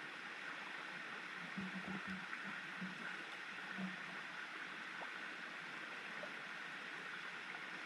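Steady rush of running water from a river stream.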